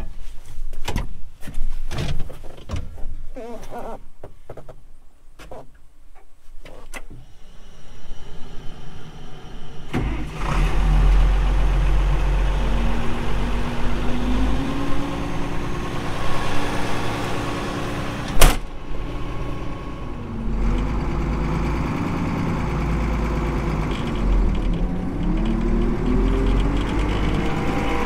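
Clicks and knocks in a tractor cab, then the tractor engine starts about ten seconds in and runs, its pitch rising and dipping as engine speed changes; one sharp clack partway through.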